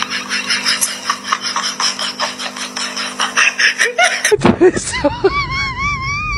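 A dog pawing or scratching at a rubber mat, a rapid, even rasping of about five strokes a second. About four seconds in it cuts off and a dog's high, wavering whine starts, rising and falling.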